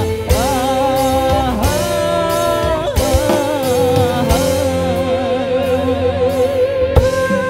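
Live dangdut band played through a PA sound system. A male singer holds long notes with vibrato over keyboard backing, with sharp kendang drum strokes every second or two.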